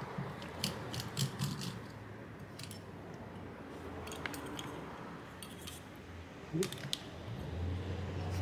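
Scattered small clicks and taps of hand work on a graphics card: a screwdriver and the plastic cooling fan being handled as the fan is taken off the heatsink. A low steady hum sits underneath.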